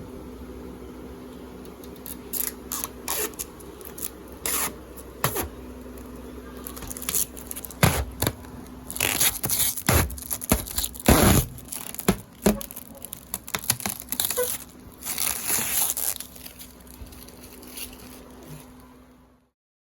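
Packaging being handled: irregular bursts of tearing, scraping and crinkling, busiest in the middle, over a steady low hum. All of it cuts off suddenly near the end.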